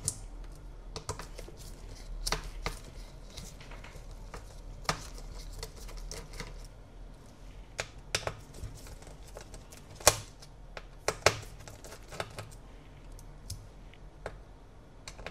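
Irregular small clicks and taps of a precision screwdriver and tiny screws on an opened MacBook Pro's metal chassis as screws are taken out, the sharpest a little past the middle, over a faint low hum.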